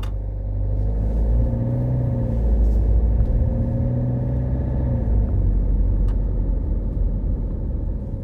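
Car driving, a deep engine and road rumble with the engine note rising and falling twice as it speeds up and eases off.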